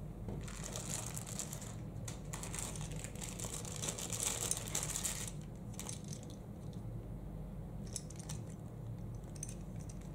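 Plastic packaging rustling and crinkling as accessories are handled, for about five seconds, then a few light clicks and taps. A low steady hum runs underneath.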